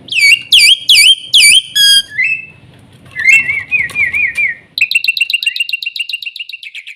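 Black-winged starling (jalak putih) singing: a run of loud, looping whistled notes, then from about five seconds in a fast, even rattling trill.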